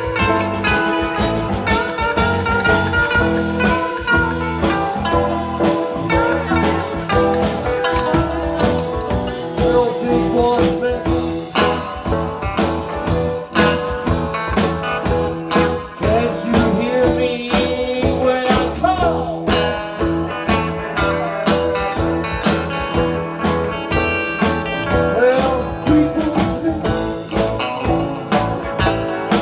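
Blues-rock band playing: an electric guitar lead with bent notes over bass and a steady drum beat.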